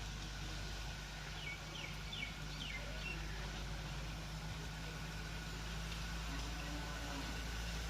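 A steady low motor hum, with a small bird chirping five quick times about two seconds in.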